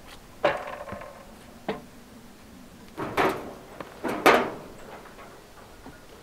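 Wooden planks and beams knocking and clattering as they are handled and set down: several sharp wooden knocks about a second apart, the loudest about four seconds in.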